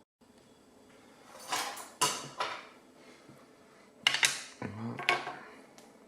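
Small metal parts clinking and clattering in two short bouts, about a second and a half in and again around four seconds in, as a freshly picked euro cylinder lock and its tools are handled to be taken apart.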